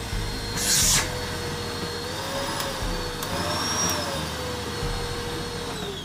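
Panasonic canister vacuum cleaner running on a test after reassembly: a steady motor whine whose pitch wavers in the middle, with a short hiss of air about half a second in. The whine drops in pitch near the end.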